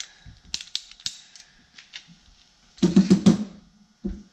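Metal hand-tool clicks from a socket ratchet being worked on the cylinder head bolts of a VW Type 1 engine: scattered light clicks, then a louder clatter of several clicks about three seconds in, and a short knock near the end.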